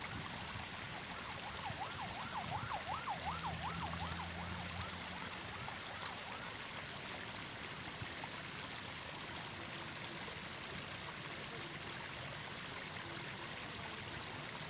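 Steady rushing hiss of riverbank ambience, like flowing water. About two seconds in, a distant siren-like tone warbles quickly up and down, about four times a second, for some three seconds, with a low hum under it, then fades.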